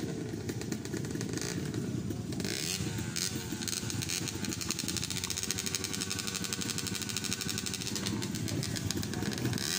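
Trail motorcycle engine running close by, its pitch slowly rising and falling as the throttle is worked.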